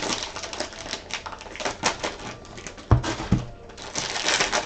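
Trading cards and packs being handled: a run of light clicks and rustles, with two dull thumps about three seconds in.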